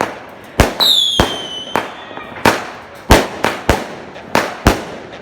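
Fireworks going off: about nine sharp bangs in quick, uneven succession, with a high whistle falling in pitch for about a second, starting about a second in.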